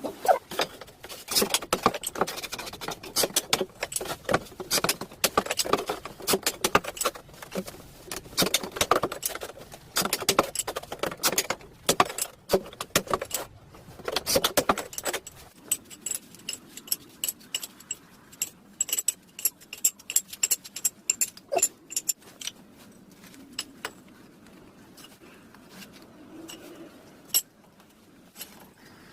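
Ceramic tiles and hand tools clinking, tapping and scraping during tile laying: a fast, dense run of sharp clinks for about the first half, then scattered taps and ticks.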